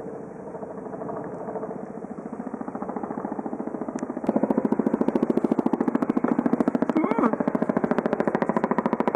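Boeing CH-47 Chinook helicopter's twin rotors beating with a rapid, even blade slap, becoming much louder about four seconds in.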